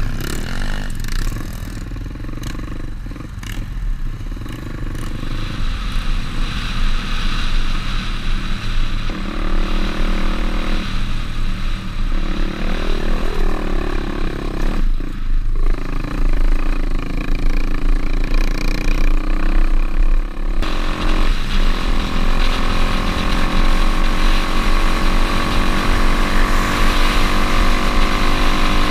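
Pit bike's single-cylinder engine running under way, its pitch rising and falling with the throttle, and climbing steadily over the last several seconds.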